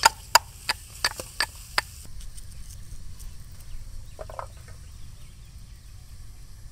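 A metal spatula knocks against an iron kadai as sliced onions are stir-fried, about three sharp clanks a second over the onions sizzling in oil. After about two seconds the clanking stops, leaving a faint hiss and one short low sound about four seconds in.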